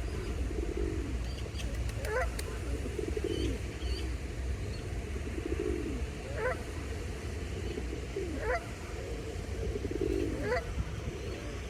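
Canada goose calls, a short rising honk repeated about every two seconds, over a steady low rumble.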